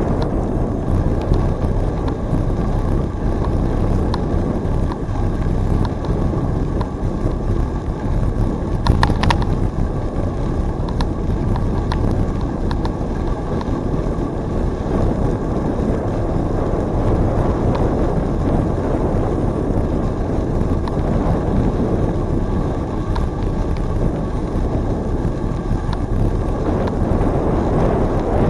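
Wind rushing steadily over the microphone of a camera on a moving bicycle. A short burst of clicks comes about nine seconds in.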